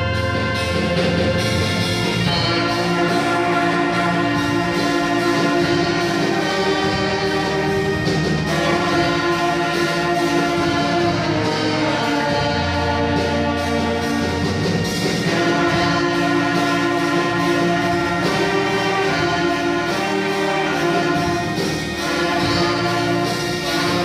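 Church orchestra with prominent brass (trumpets and trombones) playing a hymn, sustained chords moving in a steady slow phrase.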